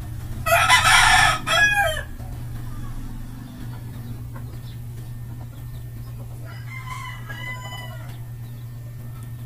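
A rooster crowing loudly about half a second in, a raspy call of about a second and a half that falls away at its end, then a fainter second call around seven seconds in. A steady low hum runs underneath.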